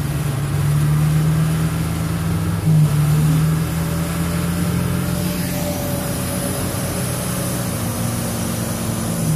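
UAZ-469 off-roader's engine running at steady, held revs, with a short jump in revs about three seconds in. After about five seconds a different steady engine note takes over.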